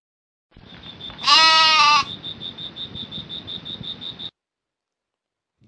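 A goat bleats once, a short call about a second in, over a steady background hiss with a high chirp repeating about six times a second; the sound cuts off suddenly about four seconds in.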